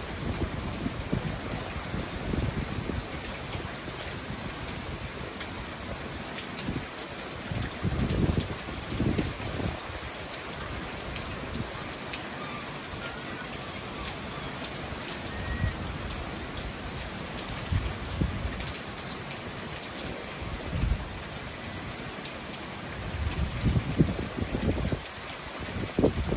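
Steady rain falling, with low rumbles swelling every few seconds and louder near the end.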